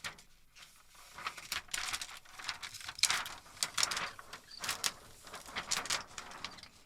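Irregular light plastic clicks and rustling as the inside of an LCD TV panel is taken apart by hand, with the screen support clips lifted out and the plastic sheets handled.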